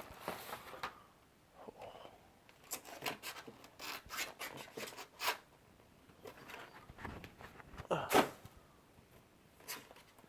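Cardboard and plastic packaging of a trading card collection box being handled: a series of short rubbing, scraping strokes, with the loudest one about eight seconds in.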